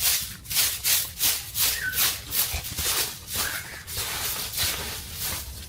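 Rhythmic rasping strokes, about three a second, weaker in the second half, as of something being brushed or scraped back and forth; a bird chirps briefly about two seconds in.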